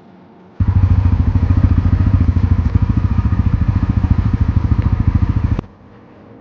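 Bajaj Pulsar NS400's single-cylinder engine running steadily at low revs, its exhaust beating in rapid, even pulses. It cuts in abruptly about half a second in and stops just as abruptly about five seconds later.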